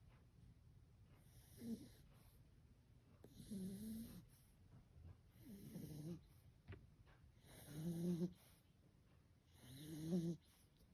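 Shar pei puppy snoring in deep sleep: five snores, about one every two seconds, each a short pitched snore, the last two loudest.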